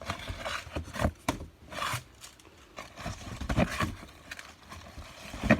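A packaged box being opened and handled by hand: irregular scrapes, rubs and short clicks, with a sharp click near the end.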